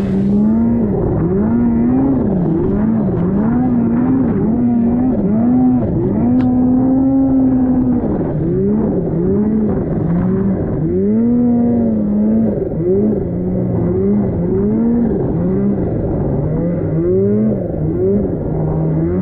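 Snowmobile engine revving up and down over and over as the sled churns through deep powder, its pitch rising and falling with each blip of the throttle.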